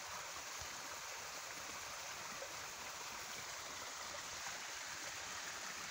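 Creek water running in a steady rush, the stream high after heavy rain.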